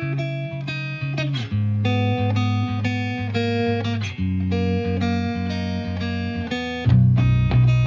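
Background instrumental music: a plucked guitar playing a run of notes over a bass line, getting louder with a deeper bass near the end.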